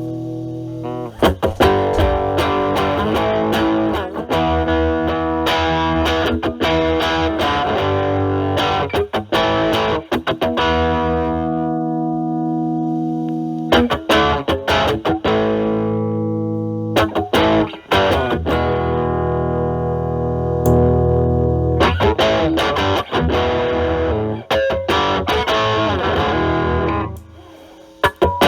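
Electric guitar played with heavy distortion: a Stratocaster with single-coil pickups through a Metal Pedals Rawhide overdrive pedal, set to high gain, into a Marshall Valvestate amp's drive channel. It plays chords and single-note licks, and about halfway through one chord is left to ring out and fade before the playing resumes.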